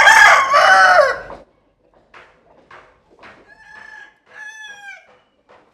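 Rooster crowing: a loud crow that ends about a second and a half in, then a fainter crow in two parts about three and a half seconds in, with a few soft clucks between.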